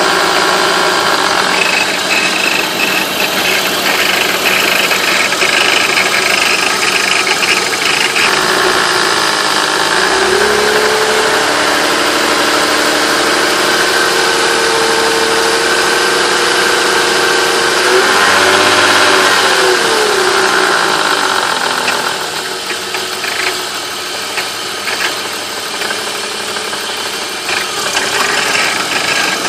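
BMW M50 2.5-litre straight-six in a warmed-up E36 325is running with a rattle, briefly revved up and back down about two-thirds of the way through. The rattle shows only once the engine is warm and near idle, which the owner suspects may be the VANOS unit.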